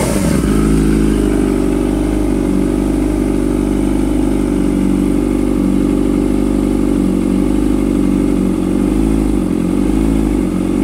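Kawasaki ZX-25R's 250 cc inline-four idling steadily through an aftermarket DX Generation GP-R slip-on exhaust while warming up, dropping back to idle from a rev just at the start.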